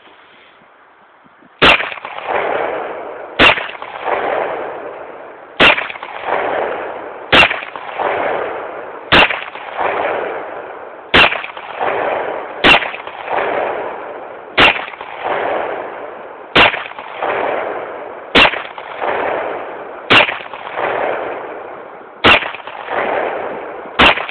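Thirteen .45 ACP pistol shots from a Springfield XD 45 Tactical with a 5-inch barrel, fired at a steady pace of roughly one every two seconds. Each shot is followed by a long echo. The reloaded ball target rounds fire with no malfunctions.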